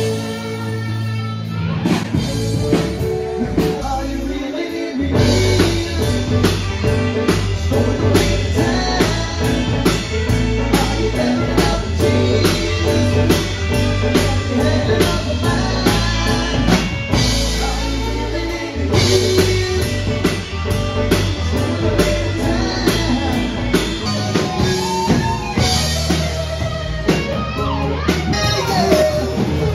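Live band playing a song: a singer over electric keyboard, guitar and a drum kit with a steady beat.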